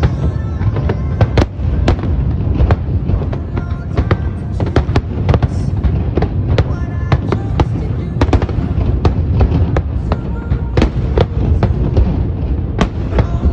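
Aerial fireworks display: a fast, irregular run of shell bursts and crackling bangs over a continuous low rumble.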